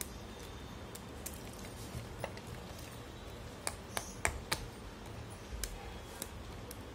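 Dry multani mitti (fuller's earth clay) chunks being snapped and crumbled between the fingers: scattered sharp, crisp cracks, with a quick cluster of the loudest about halfway through.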